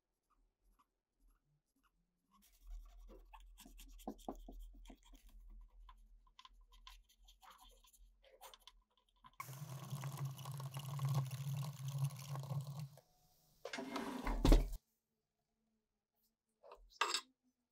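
Cotton swab wet with alcohol scrubbing a circuit board, faint scratching at first, then a louder rubbing stretch with a steady low buzz for about three and a half seconds. A short loud burst ending in a thump follows, and a brief sound comes near the end.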